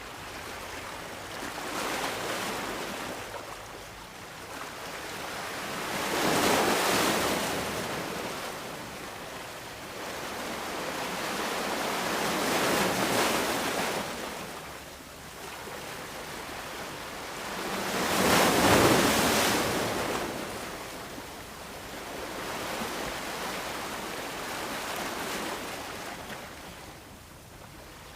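Sea waves washing onto a sandy beach, swelling and fading in slow surges every five or six seconds; the loudest surges come about a quarter and two thirds of the way through.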